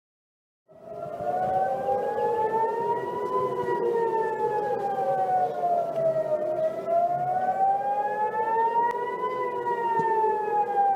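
Civil defence warning siren wailing, its pitch slowly rising and falling in cycles of about six seconds. It starts after a brief silence near the start.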